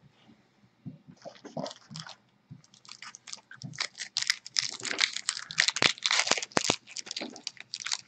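Crinkling and crackling of a baseball-card pack wrapper and cards being handled: a few light crackles about a second in, then a dense run of crackles from about two and a half seconds.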